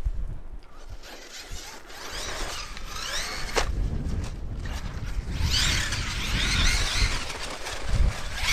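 Arrma Kraton EXB 1/8-scale RC truck on 6S running hard, its brushless motor and drivetrain whining as the throttle revs it up and down over and over. The whine is louder in the second half, over a low rumble, with one sharp click about three and a half seconds in.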